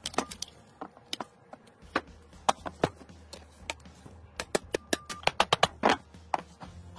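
Steel screwdriver clicking and tapping against the rusted steel parts of an AK-47 as the handguard assembly is pried loose. The taps are irregular, with a quick run of clicks about four and a half seconds in.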